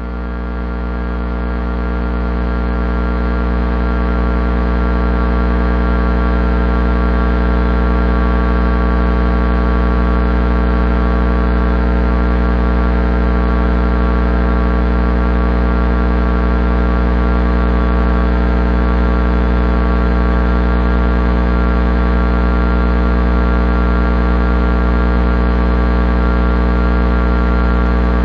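Electric transformer hum: a steady low drone with many overtones above it, swelling up over the first few seconds and then holding level.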